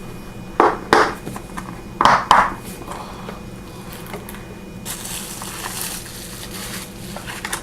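Flashlight carrying case being opened: a few sharp knocks and clicks as it is handled, then a steady scraping rasp for about two and a half seconds near the end.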